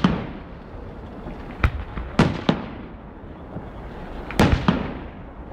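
Fireworks going off: a series of loud, sharp bangs, about seven in all, coming in small clusters one to two seconds apart, each ringing on briefly after it.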